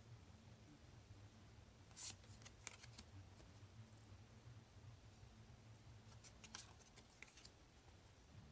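Near silence over a low room hum, with a few faint short scrapes and clicks of tarot cards being handled, about two seconds in and again around six to seven seconds.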